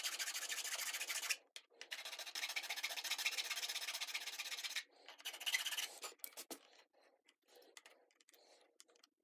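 A hand file rasping back and forth in a square hole cut in a plastic shifter bezel, truing the hole to size. It is heard as two long runs of filing, then a few short strokes, and it stops about two-thirds of the way through.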